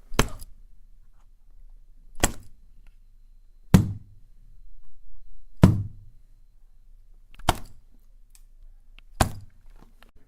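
Six sharp knocks, one every two seconds or so, over a faint low hum.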